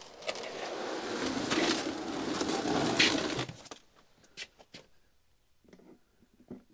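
Used motor oil pouring out of a plastic jug into a plastic oil drain pan, a gurgling rush that stops abruptly about three and a half seconds in. Then a few light knocks as the pan is handled.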